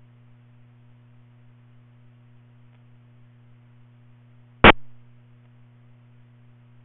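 Steady low electrical hum with faint hiss, broken by one sharp, loud click a little past halfway through.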